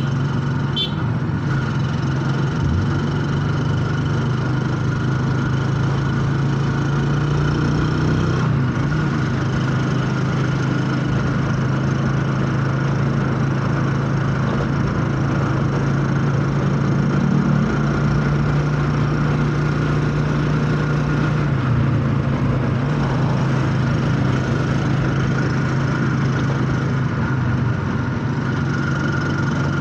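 Engine of a passenger vehicle running steadily as it drives along, heard from on board. The hum holds steady and shifts pitch slightly a couple of times.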